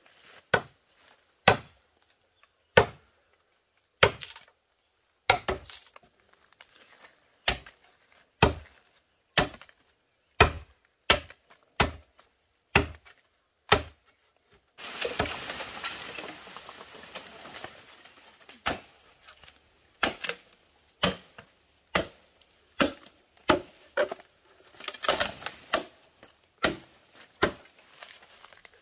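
Repeated chopping strokes of a blade into wood, about one a second with short pauses. About halfway through comes a few seconds of continuous rustling, crackling noise, then the chopping resumes.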